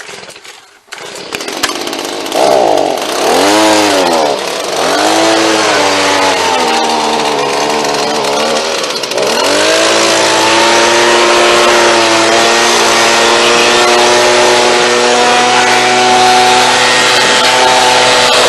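Leaf blower starting up and revved up and down a few times, then held at a steady high speed, blowing fine sawdust out of the sawmill's blade wheels.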